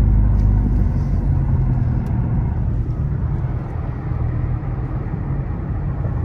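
A car's engine running with tyre and road noise heard from inside the cabin while driving. The engine note drops lower about two seconds in.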